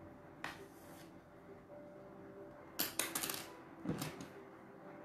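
Sewing thread drawn through cotton cloth and the fabric handled during hand-sewing. There are a few short rustling swishes: one about half a second in, a quick cluster around three seconds in, and one more near four seconds. A faint steady hum sits underneath.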